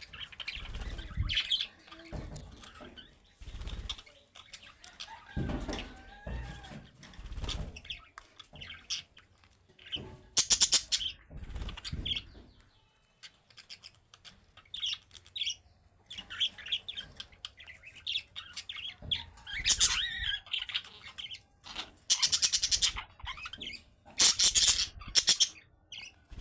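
Budgerigars chirping and warbling in busy, broken chatter, with rustling and fluttering of wings and several louder bursts of flapping.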